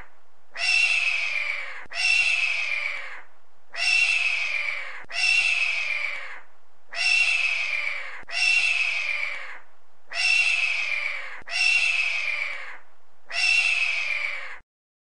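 A hawk's harsh, drawn-out scream, each call about a second long and slightly falling in pitch, repeated in pairs about a second apart, nine calls in all. The sound cuts off abruptly about a second before the end.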